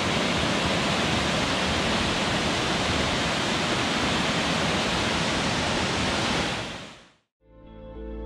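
A mountain waterfall rushing steadily, fading out about seven seconds in; soft background music begins just after.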